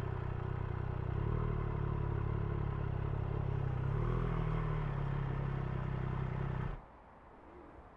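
Triumph Street Triple 765's inline three-cylinder engine running steadily at low revs, a little louder from about a second in, then stopping abruptly near the end.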